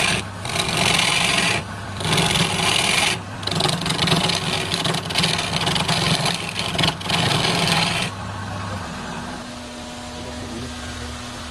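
A motor-driven tool rasping against wood in passes a second or two long with short breaks between them; about eight seconds in the cutting stops and the motor hums on by itself.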